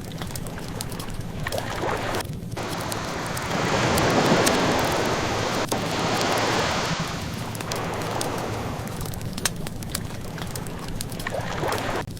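Ocean waves washing in and out, with one swell of surf peaking about four to six seconds in. Through the waves runs the light crackle of a burning wood fire: many small, scattered pops.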